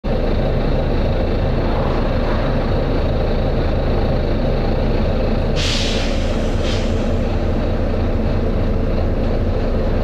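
Volvo B9TL bus's six-cylinder diesel engine running steadily, heard from inside the passenger saloon. About halfway through, a sharp hiss of compressed air from the bus's air system lasts about half a second, with a fainter short hiss a second later.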